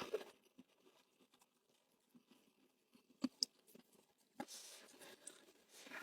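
Close-miked eating sounds: faint mouth clicks and chewing, with one sharp click about three seconds in, then rustling from about four and a half seconds in.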